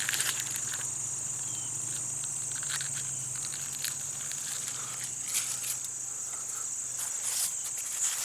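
A steady, high-pitched insect chorus runs throughout, with scattered dry rustles and crackles from corn husks and stalks being handled.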